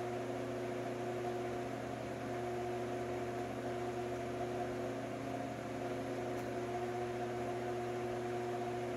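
Steady hum of a running electric shop fan.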